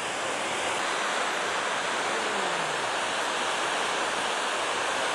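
Steady rushing of water falling over a river waterfall.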